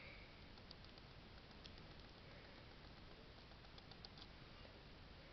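Near silence: room hiss with a few faint small clicks from fingers handling a small toy, a cluster around two seconds in and another around four seconds in.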